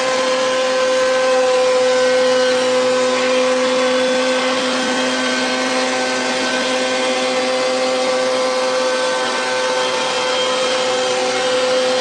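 CNC router spindle milling solid wood: a steady whine from the spinning cutter over the noisy hiss of the cut.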